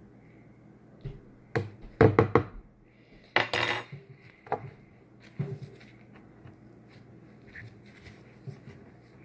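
Utensils and containers being handled: a cluster of sharp clinks and knocks about two seconds in, a short scraping rustle shortly after, then a few lighter taps.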